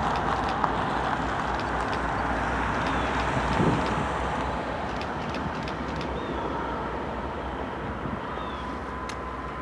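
A train rolling past: a steady rumble with a thin, steady whine and scattered light clicks, slowly fading.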